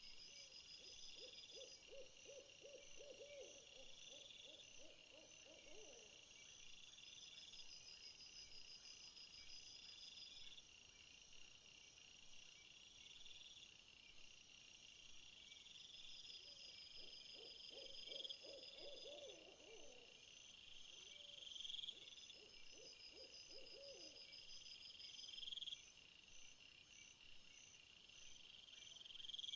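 Faint night insect chorus: a steady high chirping with a rising trill repeating every couple of seconds. A lower, fast-pulsed trilling call comes in over the first few seconds and returns twice around the middle.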